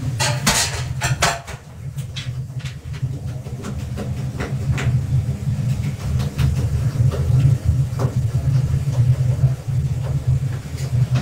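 A steady low hum throughout, with a cluster of knocks and clatter in the first second and a half. After that come scattered light clicks and rubbing as a cloth wipes a gas stove top.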